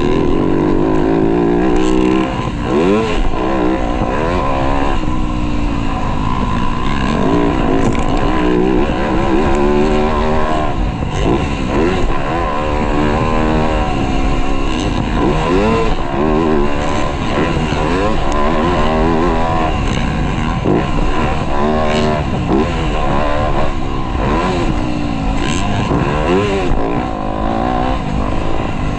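Motocross dirt bike engine revving hard, its pitch climbing and dropping over and over, every second or two, as the rider works the throttle and gears around the track.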